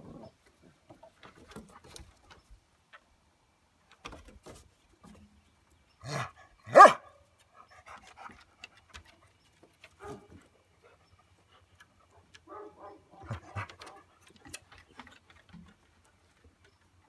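Dogs at play, a Dalmatian puppy and a large long-haired dog: two sharp barks about six and seven seconds in, the second much the loudest, then a run of short, softer dog calls about twelve to fourteen seconds in, with faint scattered sounds between.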